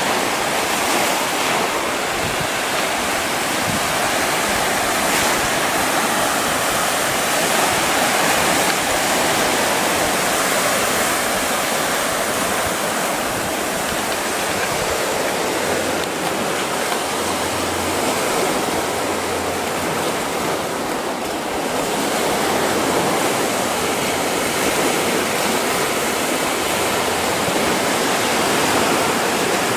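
Small sea waves breaking and washing over shoreline rocks and sand: a steady rush of surf.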